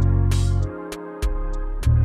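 Background music with a steady beat, sustained keyboard-like notes and heavy bass notes.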